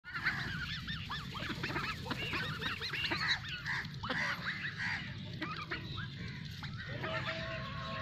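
A flock of Khaki Campbell ducks calling: many short, overlapping calls, busiest in the first half.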